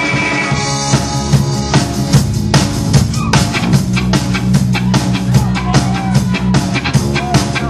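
Amateur rock band playing live, instrumental with no singing: electric guitar and bass with a drum kit. A held chord opens the passage, then a steady drum beat comes in about a second in.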